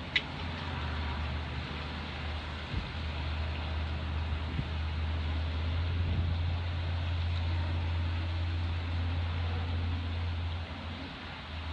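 A compressor running with a steady low hum. A single sharp click sounds just after the start.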